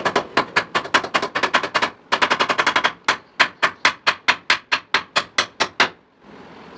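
Rapid hammer blows, about five to seven a second, pausing briefly near two seconds and stopping about six seconds in.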